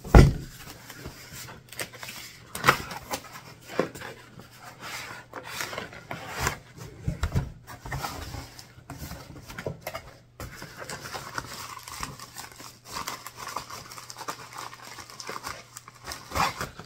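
Cardboard box being opened and unpacked by hand: a thump at the start, then irregular rustling, scraping and clicking of cardboard flaps and bubble-wrap packaging.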